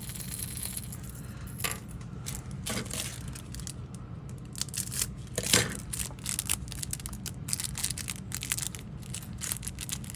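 A fishing lure being handled: irregular light clicks and rattles of its hard body and hooks, with one sharper click about five and a half seconds in. A steady low hum runs underneath.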